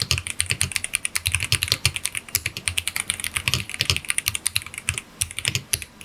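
Typing on a stock ASUS ROG Azoth 75% wireless mechanical keyboard: a fast, continuous run of keystrokes, about ten a second, with a brief pause about five seconds in. The keystrokes have a very high-pitched sound.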